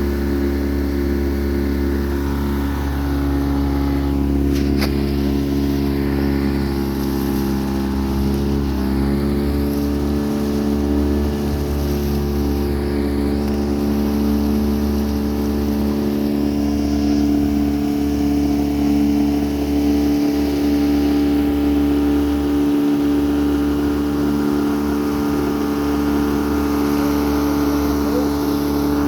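An engine running at a steady speed over a low rumble, its pitch shifting slightly about nine seconds in.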